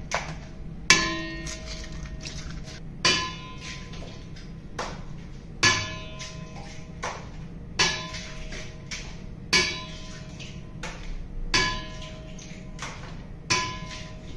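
Eggs cracked one after another against a stainless steel mixing bowl: a sharp knock every one to two seconds, each leaving the bowl ringing briefly.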